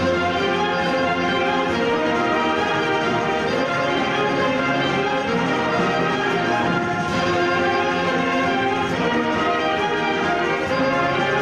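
Concert band playing with a violin soloist: solo violin over flutes and brass.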